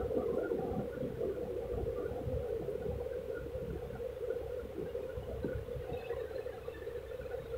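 A steady low hum with a faint crackling texture.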